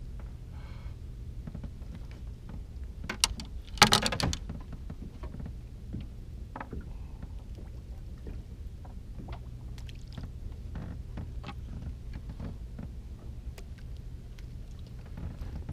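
Small fishing boat with a steady low hum, likely its motor, and scattered clicks and knocks of rod, reel and line handling against the boat. A loud clatter of knocks comes about four seconds in.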